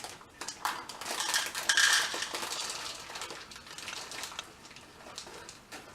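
Chocolate chips being poured into a bowl of cookie dough: a dense rattling clatter that builds over the first two seconds, then thins out to scattered ticks.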